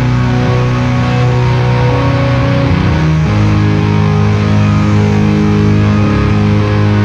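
Slow instrumental rock: electric guitar and organ holding long, sustained chords, moving to a new chord about three seconds in.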